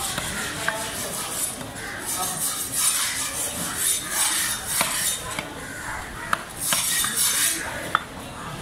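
A large heavy knife slicing a yellowfin tuna loin on a wooden chopping block, with scraping and sharp knocks and clinks of the blade every second or two.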